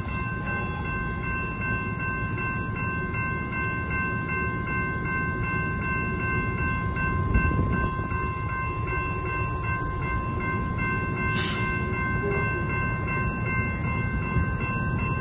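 Railroad grade-crossing warning bell ringing steadily while the crossing signals flash, warning of an approaching train, over a low background rumble.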